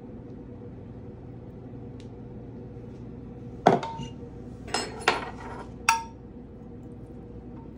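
Dishware knocking against a glass baking dish: four sharp clinks with a brief ring, the middle two close together, over a steady low hum.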